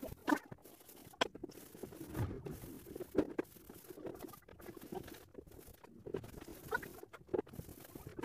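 Brush dabbing paint onto a ceiling: irregular soft taps and scuffs, with a few sharper clicks about once a second.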